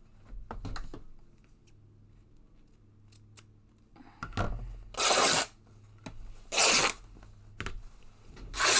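Paper being handled: four short rasping strokes, roughly a second or more apart, from about halfway through.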